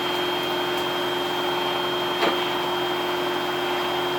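Vacuum cleaner running steadily, its motor giving a constant whine, with one sharp knock about two seconds in.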